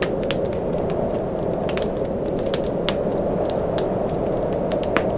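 Wood fire in a fireplace crackling, with irregular sharp pops over a steady low rush of burning.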